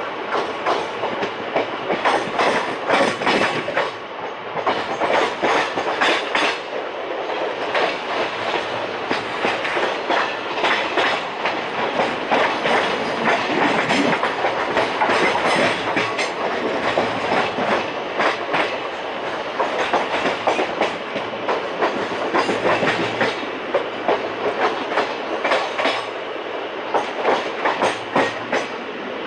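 Karnataka Sampark Kranti Express coach running at speed: the wheels clatter over rail joints and points in repeated clusters of sharp clicks over a steady rushing noise.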